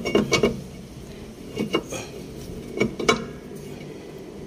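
Rear brake drum of a Mazda 323 Familia clanking and clinking metallically against the hub and brake shoes as it is worked off by hand after being hammered loose. The knocks come in three short bunches: right at the start, a little before two seconds, and around three seconds.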